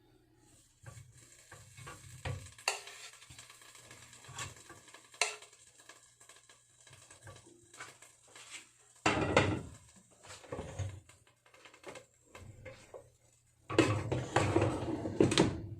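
Utensils and food being handled in a Philips air fryer's metal basket as the last bacon-wrapped asparagus pieces go in: scattered clicks and scrapes, then two louder bouts of metal clatter and scraping, about nine seconds in and near the end.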